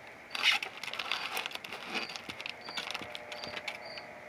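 Styrofoam packing and plastic being handled, scratchy rustling and clicking, loudest about half a second in. Crickets chirp steadily behind it, about one short high chirp every two-thirds of a second.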